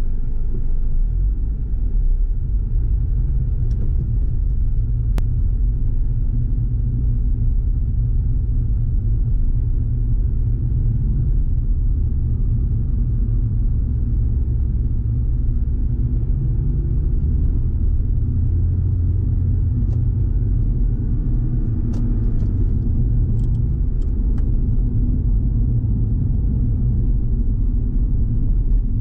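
Steady, deep road and engine noise of a car driving in city traffic, heard inside the cabin.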